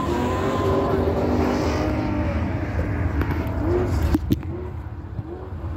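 A car's engine revving with its tires squealing as it spins in a burnout, the squeal fading about a second in and the engine easing off soon after. Two sharp cracks come about four seconds in.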